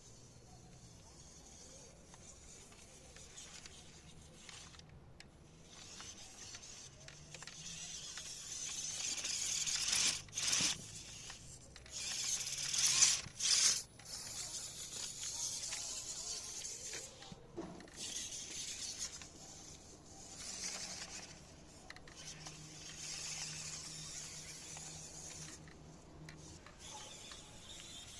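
Small 1:24 RC four-wheel-drive car driving, its two small electric motors and 3D-printed plastic drivetrain whirring with soft TPU tyres on the ground; the whir swells and fades with speed, loudest near the middle, with a few abrupt breaks.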